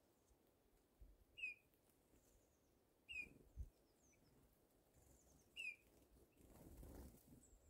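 Eurasian nuthatch giving three short, sharp call notes about two seconds apart.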